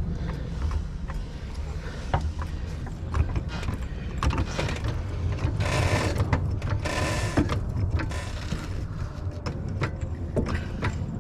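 Hydraulic floor jack being pumped by its handle under the car's subframe, with irregular clicks and creaks from the pump mechanism and two louder scraping stretches about halfway through, over a steady low rumble.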